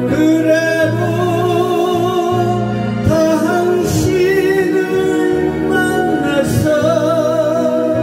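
A man singing a slow Korean trot ballad with heavy vibrato into a microphone, over instrumental accompaniment.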